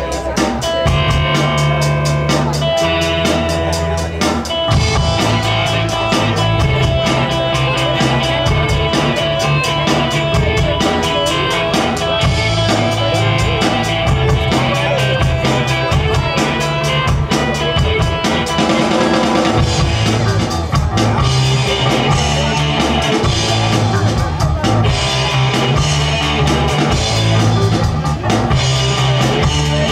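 Live rock band playing loud and continuous, with a drum kit keeping a steady beat under electric guitar and bass guitar.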